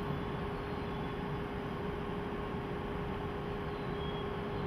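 Steady railway-platform ambience: an even rush of noise with a constant mid-pitched hum running under it, and no passing train or other distinct event.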